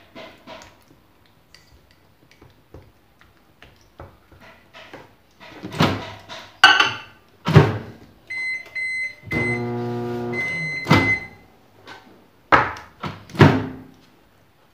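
Microwave oven heating a mug of plastisol: a few short keypad beeps, then the oven hums for about a second and a half and beeps as it stops, followed by a sharp click. Knocks and clatter from the door and the mug come before and after.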